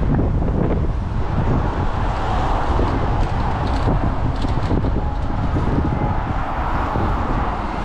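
Steady street traffic noise with wind buffeting the microphone, heaviest as a low rumble, with a few faint clicks.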